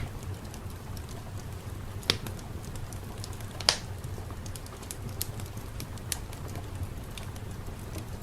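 Fireplace crackling: sharp, irregular pops every second or so over a low steady rumble.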